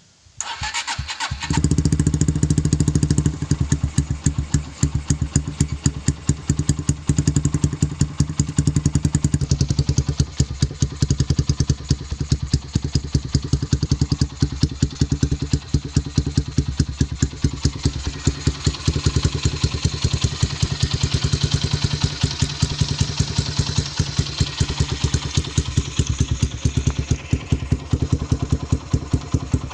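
Honda Megapro single-cylinder four-stroke motorcycle engine breathing through an aftermarket CKC round muffler with a 'boom' header pipe: it is started, catches about a second and a half in, then runs loudly with an even, fast exhaust pulse.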